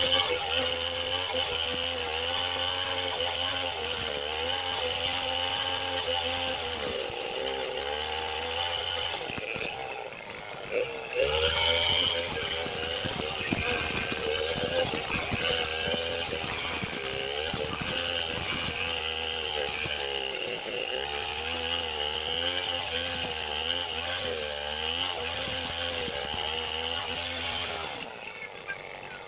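Chainsaw running and cutting wood, its engine pitch rising and falling as it works, with a brief dip about ten seconds in and a drop near the end.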